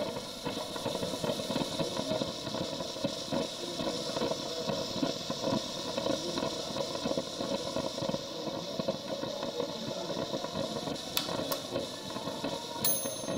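Hands rubbing and squeezing a forearm, wrist and hand during a massage, over a steady mechanical hum. A few sharp clicks come near the end.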